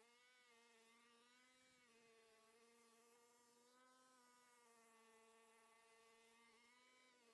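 Near silence with a faint, steady buzzing whine that wavers slightly in pitch.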